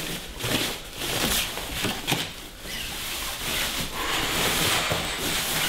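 White plastic wrapping rustling and crinkling as it is pulled off an object packed in a cardboard box, in irregular swells.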